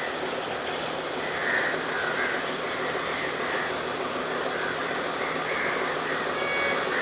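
Sri Lanka Railways Class S11 diesel power set running slowly round a curve: the steady running noise of the train and its coaches on the rails.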